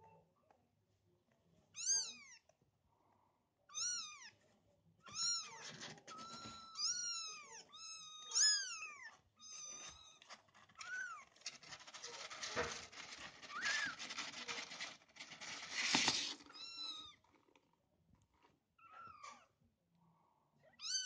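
Four-week-old kittens mewing over and over with high, thin, arching cries, sometimes several in quick succession. From about ten to sixteen seconds in there is a stretch of scratching and rustling as they claw and scramble against the cardboard box and its paper lining.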